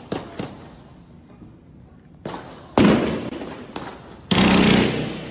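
Guns firing blanks in a staged shootout: two sharp cracks right at the start, then more shots from about two seconds in. The loudest ones ring on with a long echoing tail, and near the end there is a denser burst lasting about a second.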